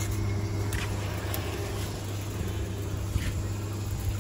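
A car running steadily, with a low, even hum.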